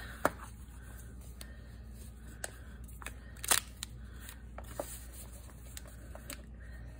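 Paper cover of a handmade notepad journal being bent and pressed along its spine folds. It gives faint, scattered clicks and crackles, with one sharper click about three and a half seconds in.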